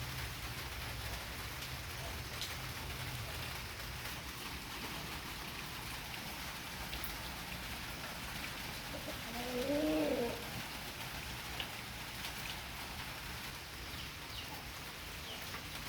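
Steady rain falling on surfaces, with one short call about ten seconds in that rises and then falls in pitch, like a coo.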